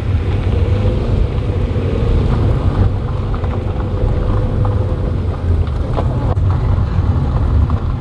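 Sedan driving over a steep, rocky dirt road: steady low engine and road rumble, with a few scattered knocks.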